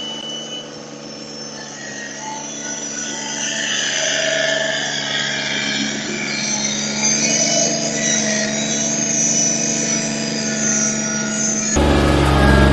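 An engine running steadily with a low hum. About a second before the end, a louder engine sound cuts in.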